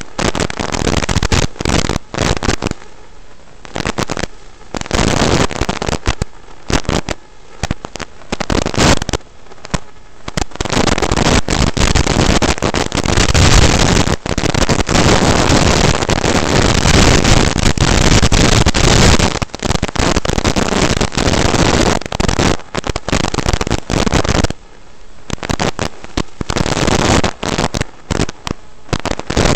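Hiss and crackling static from an analog FPV video receiver, cutting in and out and surging as the video signal strengthens and breaks up.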